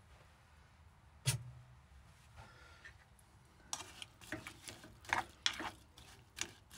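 A plastic spoon stirring apple slices in water in a saucepan, clicking and scraping irregularly against the pan from a little past halfway. A single sharp click comes about a second in.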